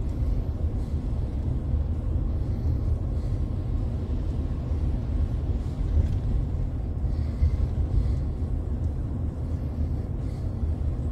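Steady low rumble of a pickup truck's engine and road noise, heard from inside the cab while driving along a street.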